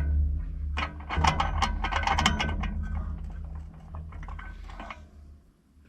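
Ratchet wrench with a socket clicking in quick runs while tightening bolts on a disc mower's end pod, thinning out and stopping near the end.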